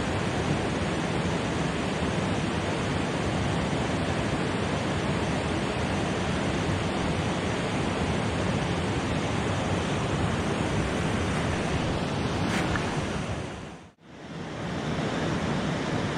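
Steady rush of river water, an even hiss with no pauses, which fades away and back in about fourteen seconds in.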